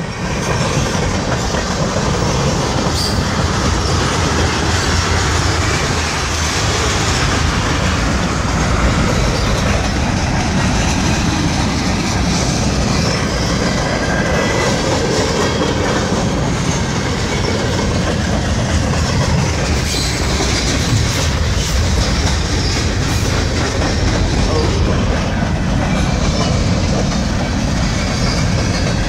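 Freight train passing at close range: tank cars, a centerbeam flatcar and hopper cars rolling by, a steady rumble of steel wheels on rail with scattered clicks as the wheels cross rail joints.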